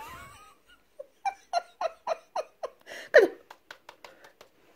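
A woman laughing: a quick run of short ha-ha bursts, about three or four a second, with one louder laugh about three seconds in, then trailing off into fainter breaths.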